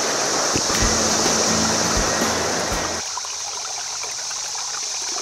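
Rushing water of a clear mountain river running over rocks and boulders: a steady hiss. A few low thumps and low steady tones come in the first three seconds.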